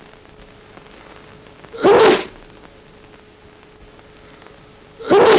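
A man sneezing twice into a handkerchief, two short voiced 'atchoo' sneezes about three seconds apart. The second comes near the end. A faint steady hum runs beneath them.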